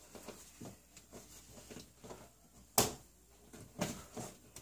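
Faint scraping and small clicks of wall anchors being worked out of a bathroom wall by hand, with one sharp click a little before three seconds in.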